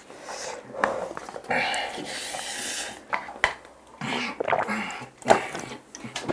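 Two people eating Buldak fire noodles fast: slurping and chewing, with noisy breaths and throat sounds from the spice. There are several sharp clicks of chopsticks and cup rims.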